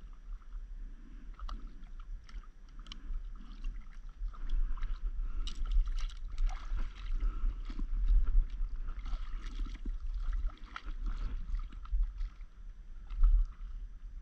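Small waves slapping and splashing against a stand-up paddleboard on the sea in irregular bursts, over a steady low rumble.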